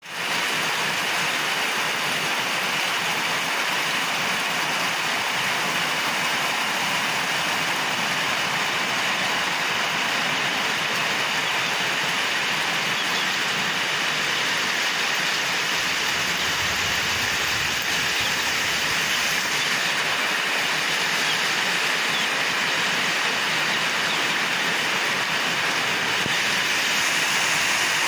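Steady rain falling, the first rain of the season: an even, unbroken hiss that holds at the same level throughout.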